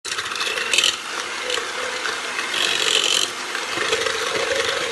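Electric hand mixer running steadily with a constant motor hum, its beaters whisking egg yolks and sugar and rubbing against a plastic mixing bowl.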